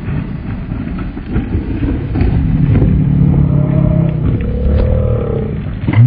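Electric unicycle rolling down a steep dirt trail and past close by: a rough rumble of the tyre on loose dirt, louder from about two seconds in, with a faint whine that rises and falls in the second half.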